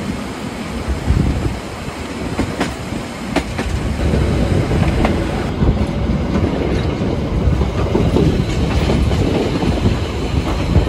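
Steam train of the Harz narrow-gauge Brocken railway running, a steady heavy rumble with a few sharp clicks of the wheels over rail joints.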